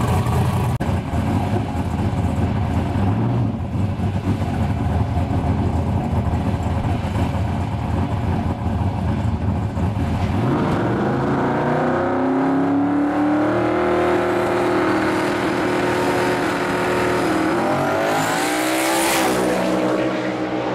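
Turbocharged Ford Falcon drag car's engine running loudly at low revs as it creeps into stage. About ten seconds in it launches: the engine note climbs steeply, holds, then climbs again near the end as the car makes a full-throttle six-second pass.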